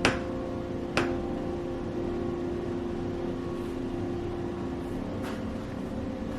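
Steady low hum with a few fixed tones, and two sharp clicks, one at the start and one about a second later.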